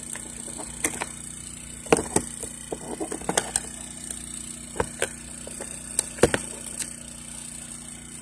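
Scattered sharp plastic clicks and taps as a generator's replacement control panel is handled and pressed into place and its wiring plug pushed home, over a steady faint hum.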